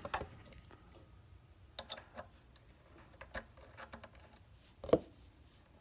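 Faint scattered clicks and taps of a Dremel rotary tool and its small drill bit being handled while the bit is set in the chuck, with one louder knock near the end.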